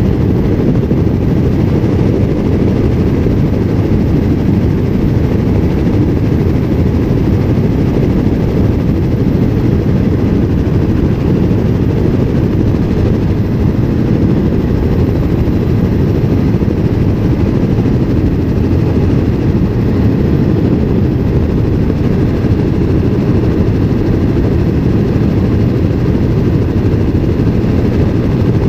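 Helicopter in level flight: loud, steady rotor and engine noise, a low rumble that does not change.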